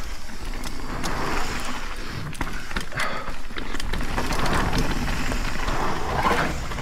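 Propain Spindrift AL 29 enduro mountain bike descending a dry dirt trail: knobby tyres rolling with a steady rush, and the bike clattering with several sharp knocks over bumps and roots.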